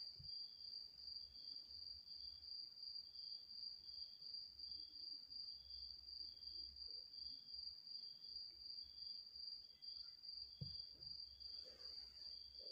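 Faint insect chirping, likely a cricket: a high-pitched chirp repeating evenly about two to three times a second, with a lower, fainter chirp about once a second.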